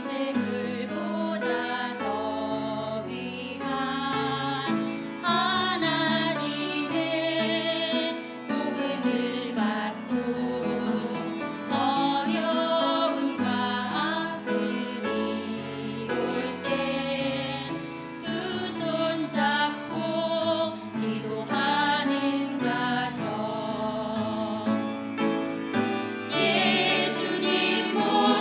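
Voices singing a Christian song with instrumental accompaniment: sustained sung notes with vibrato over held bass notes.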